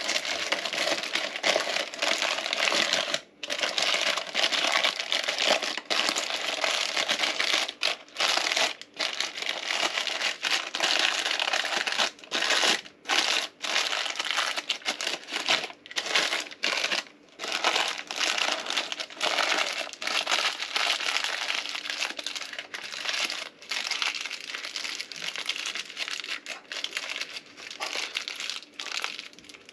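Parchment paper crinkling as hands fold and press it around a soft round cheese, with several short pauses between handlings.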